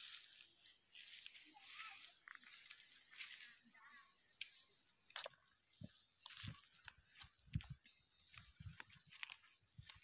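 Steady high-pitched insect drone, with a few short chirping calls over it, that cuts off abruptly about five seconds in. After that come quieter rustling of chilli plants and soft handling knocks as green chillies are picked by hand.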